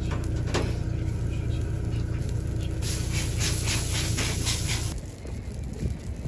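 Chicken skewers sizzling on a hot grill over a steady low rumble, the hissing sizzle strongest and crackling from about three seconds in; the sound drops away near the end.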